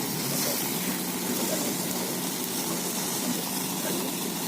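Steady hissing noise.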